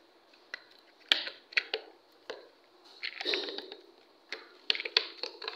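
Plastic toy gun being handled and opened: scattered sharp clicks and creaks of its plastic shell and parts, with a short scraping rustle about three seconds in.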